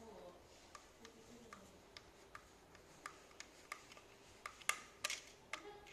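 Light, irregular clicks and ticks of steel fence wire being wound around the metal terminal bolt of a plastic electric-fence cut-off switch, with two louder clicks near the end.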